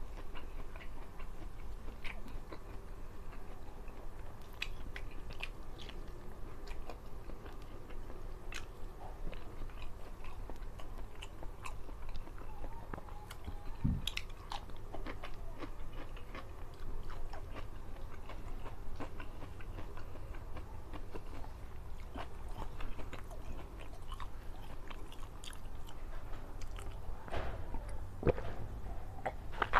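Close-miked mouth sounds of a person eating with his hands: steady chewing and lip-smacking on rice and fish, with many short, sharp clicks and crunchy bites into raw vegetables such as cucumber.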